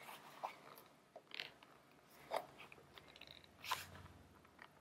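Faint handling noise of fountain pens being pushed and adjusted in the leather loops of a Galen Leather five-slot zippered pen case: a few brief, spaced-out rubs and small clicks of leather and pen clips.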